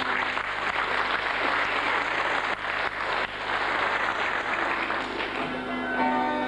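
Audience applause over recorded stage backing music; the clapping covers the music for most of the stretch, and the plucked-string melody comes through clearly again near the end.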